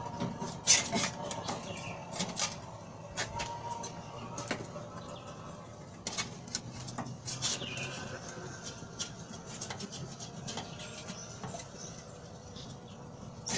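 Irregular light clicks and taps of hands handling wires and push-on connectors inside an air conditioner outdoor unit's electrical compartment.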